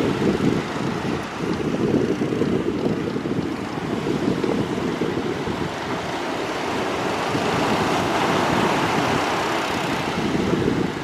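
Surf breaking and washing in the shallows, with heavy wind buffeting on the microphone as a steady low rumble.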